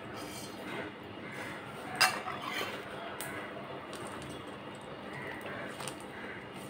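A steel spoon clinks sharply once against a stainless steel plate about two seconds in, followed by a few fainter taps as rice is mixed by hand on the plate.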